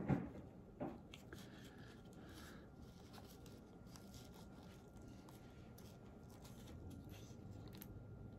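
Quiet room with faint small clicks and light rustles of hands handling a paper greeting card on a craft board, and a couple of brief louder sounds in the first second.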